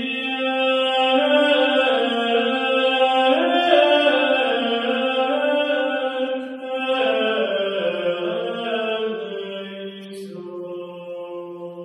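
Slow vocal chant music: voices hold long notes in chords that shift every second or two, easing down near the end.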